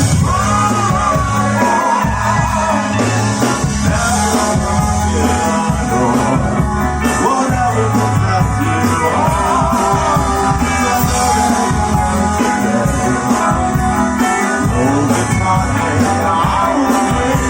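Live rock band playing: a singer's voice over guitar, bass and drums, loud and continuous.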